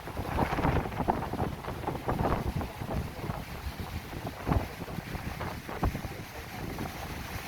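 Heavy cyclone wind buffeting the microphone in uneven gusts, a rough low rumble that rises and falls.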